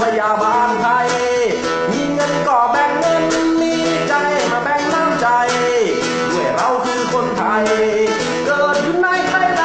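A man singing a Thai song and accompanying himself on guitar.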